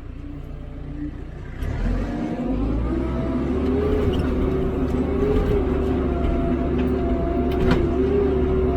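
Hidromek 102B backhoe loader's diesel engine running low, then revving up about a second and a half in and holding high revs with a wavering whine, working under load.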